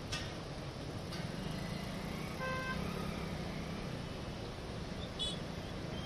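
Steady outdoor rush of a flooded river mixed with traffic noise from the road bridge. A short vehicle horn toot sounds about two and a half seconds in, with a brief high chirp near the end.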